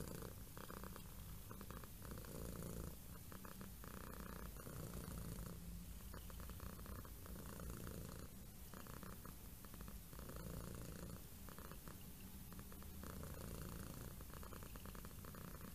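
Domestic cat purring steadily, in a slow rhythm of in-and-out breaths, roughly one every two seconds.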